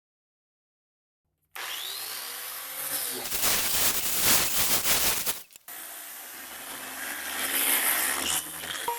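A power tool working wood, starting suddenly about a second and a half in, louder through the middle, with a brief break just after halfway before it carries on.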